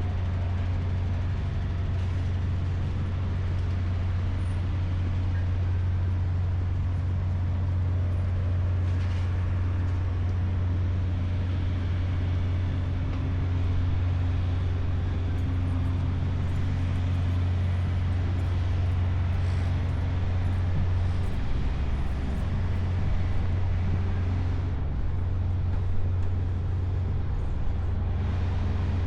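Boat engine running with a steady low drone, with a few light knocks in the later part.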